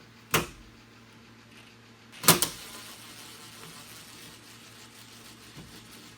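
Two sharp knocks of hard objects about two seconds apart, the second louder and made of a few quick clacks, then faint small ticks.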